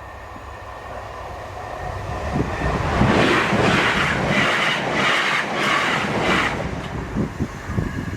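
A passenger train passing at speed. It builds up, rushes loudly for about three and a half seconds with a pulsing beat as the carriages go by, then fades away.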